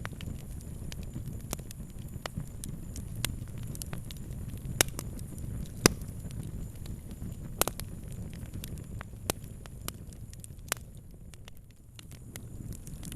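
Fire crackling: irregular sharp pops and snaps over a steady low rumble of flames, the loudest pop about six seconds in. The rumble dips briefly near the end.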